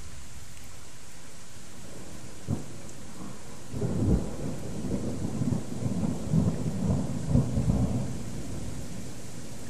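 Thunder: one short crack about two and a half seconds in, then a rolling rumble with repeated peaks for about four seconds, over the steady hiss of heavy rain.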